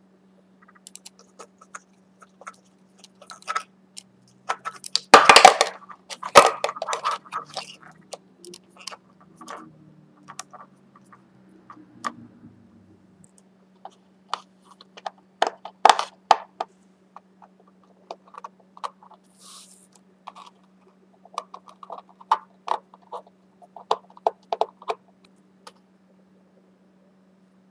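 Handling noise of small parts being fitted by hand: irregular clicks, taps and scrapes of a 3D-printed plastic flight-controller tray and its wiring being set into a model aircraft's airframe, loudest in a scraping clatter about five seconds in. A faint steady hum sits under it.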